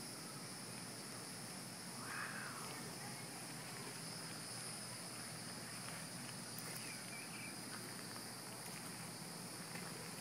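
Faint, steady high-pitched insect chorus, with a short faint chirp about two seconds in.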